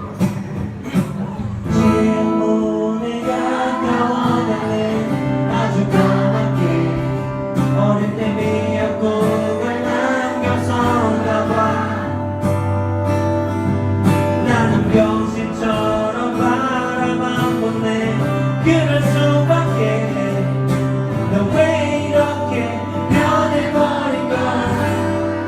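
Live concert music: a male singer's vocals over a backing track with long held bass notes.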